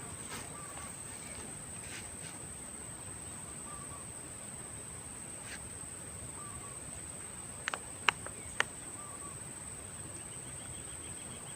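Swamp-forest ambience: a steady high-pitched insect drone, with short bird calls repeating every second or two. A few sharp clicks come about eight seconds in, and a fast trill near the end.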